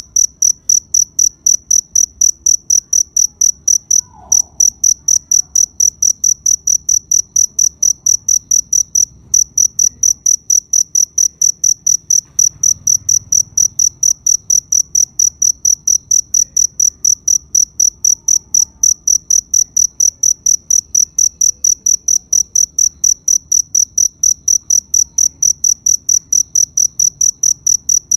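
A cricket chirping steadily in a fast, even rhythm of about three high-pitched chirps a second, broken by two brief pauses early on.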